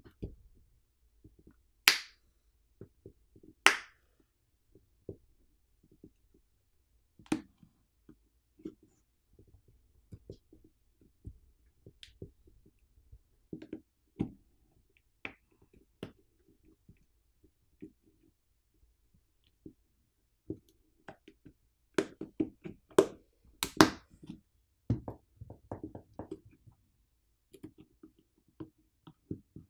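Glued plastic housing of a wall charger being pried open: sharp cracks and snaps as the glue and plastic give way, two loud ones about two and four seconds in and a dense cluster late on, with small clicks and taps of the tool in between.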